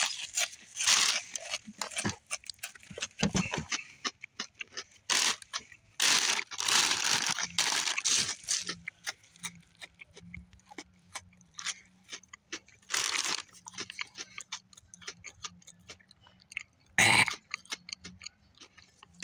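Dry toast-crunch cereal squares crunching in a series of separate crackling bursts.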